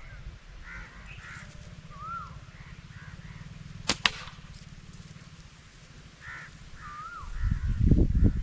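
A slingshot shot: two sharp cracks a fraction of a second apart about four seconds in, the snap of the released bands and the ball's strike. Birds call now and then, and from about seven seconds wind buffets the microphone.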